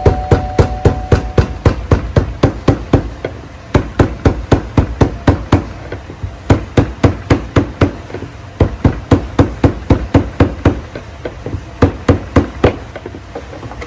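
Mallet striking the handle of a screwdriver set against the plastic lock ring of a Jeep Wrangler TJ's fuel pump module, knocking the ring round to free the pump. Quick, sharp blows about four a second, in runs broken by short pauses.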